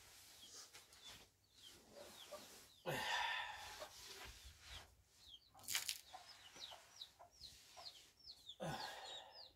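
Chickens calling: a steady run of short, high, downward-sliding peeps. Two louder swishing noises come about three seconds in and near the end, and a sharp knock comes near six seconds.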